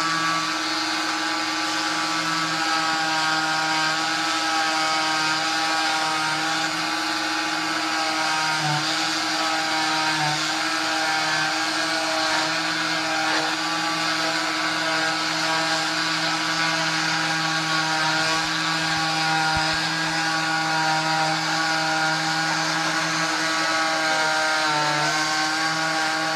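Oscillating cast saw running with a steady high whine as it cuts through a fiberglass leg cast, its pitch dipping slightly now and then.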